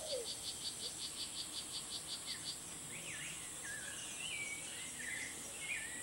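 Rainforest ambience. An insect chirps in a fast, even pulse of about six a second over a steady high insect hiss, and the chirping stops about two and a half seconds in. Wavering, whistled bird calls take over in the second half.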